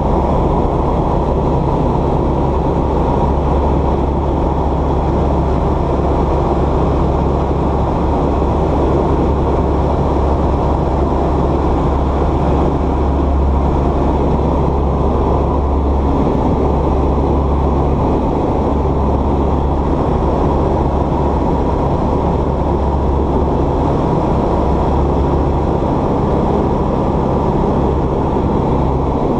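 Light aircraft's piston engine and propeller droning steadily, heard from inside the cabin, loud and even with no change in power.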